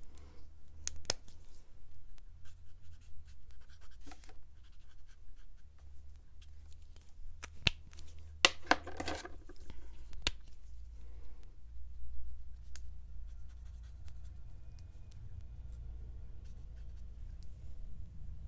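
Alcohol markers being handled and drawn with: a few sharp clicks from caps and marker barrels, and short stretches of scratchy rubbing of a marker on paper, over a low steady hum.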